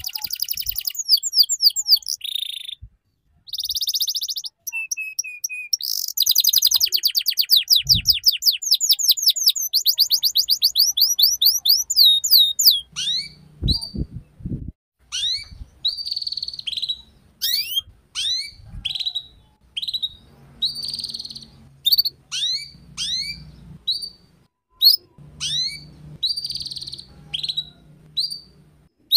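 Canary singing: fast trills of repeated high notes for about the first twelve seconds, broken briefly near the start, then separate short chirps that slide down in pitch, about one a second.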